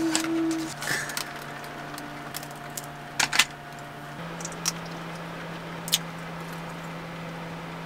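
Plastic snack packaging crinkling as strips of a dried squid snack are pulled out of the bag, then a few short sharp bites and chews, over a steady low hum.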